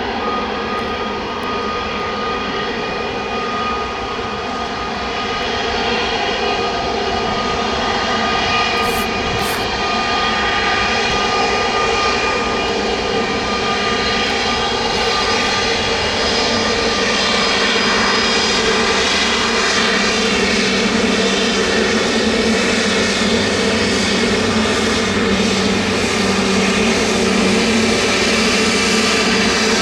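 Airbus A319neo's turbofan engines running, a jet roar with a steady whine of several held tones, growing slowly louder.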